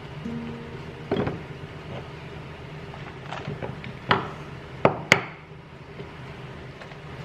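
Household objects knocked and set down during cleaning: four sharp knocks, the last two close together and loudest, over a steady low hum.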